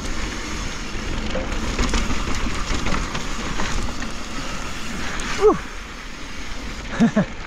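Mountain bike tyres rolling and crunching over a soft, sandy dirt trail, with wind noise on the camera microphone. About five and a half seconds in there is a short vocal cry that falls sharply in pitch, and near the end two brief vocal sounds.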